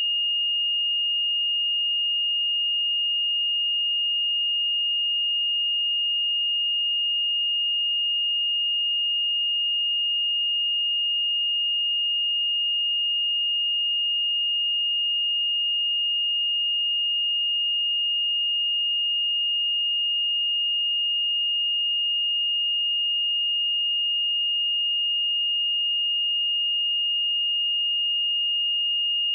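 A pure 2842 Hz sine-wave test tone, held steady at one pitch and level: a high, thin, unwavering beep.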